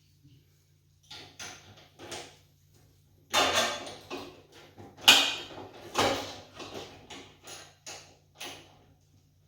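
About a dozen irregular knocks and scraping clatters of tools and metal hardware being handled during generator assembly, loudest around three and five seconds in.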